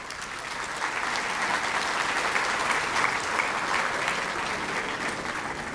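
Audience applauding: many hands clapping in a dense patter that swells over the first second, holds steady, and begins to ease off near the end.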